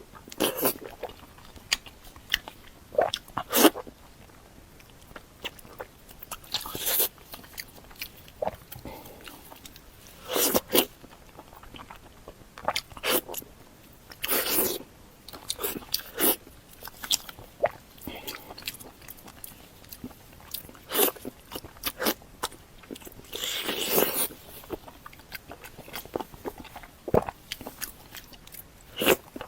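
Close-miked eating: irregular bites and chewing in short separate bursts, with a slightly longer bout of chewing a few seconds before the end.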